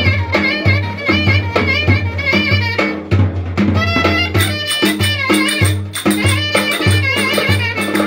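Clarinet playing a fast, ornamented Turkish folk dance tune (oyun havası), with a large double-headed davul drum beaten by hand in a steady, driving beat beneath it.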